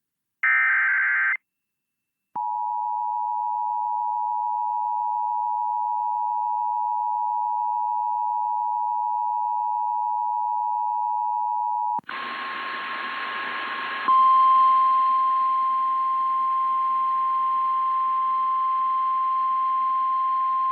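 Emergency Alert System tones. A short raspy SAME header data burst is followed by a second of silence, then the steady two-tone EAS attention signal for about ten seconds. It cuts off into radio hiss, and about two seconds later a single steady NOAA Weather Radio 1050 Hz alert tone sounds and holds.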